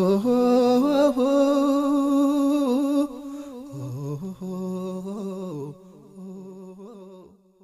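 Closing of an a cappella Amharic nasheed: voices humming long held notes without words. The humming is loud for about three seconds, then softer, and fades out near the end.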